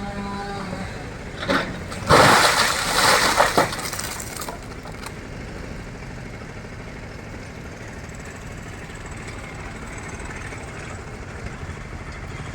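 A loud crash of breaking wood lasting about two seconds, with several sharp cracks, as a large tree comes down. A short crack comes just before it, and a steady low background follows.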